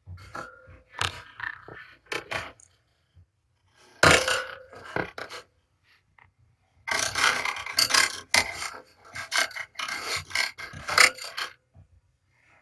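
Kittens scratching and scrabbling with their claws, a series of rasping scrapes and clicks. It comes in bursts, loudest about four seconds in and in a long run from about seven to eleven seconds.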